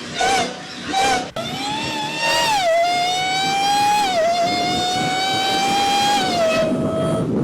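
Supercharged V8 of a Dodge Challenger Hellcat accelerating hard through the gears. A high whine climbs in pitch and drops at each gear change, twice, then holds nearly steady and eases off near the end.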